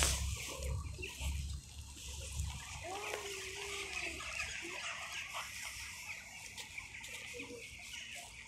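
A cat's drawn-out, low mating yowl about three seconds in, rising briefly and then held at one pitch for over a second, with a few faint shorter calls later. A low rumble on the microphone fades out after the first couple of seconds.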